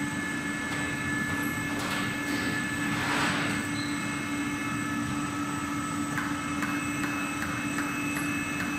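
Cold-extruding pet treat machine and its conveyor running: a steady machine hum with a constant low tone and several thin high whines. There are swells of rushing noise about two and three seconds in, and a run of light clicks near the end.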